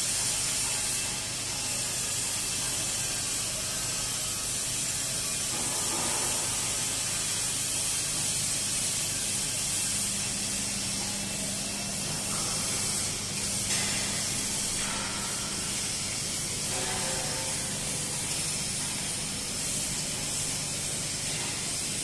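Steady hissing background noise of a fabrication shop, with a faint low hum underneath.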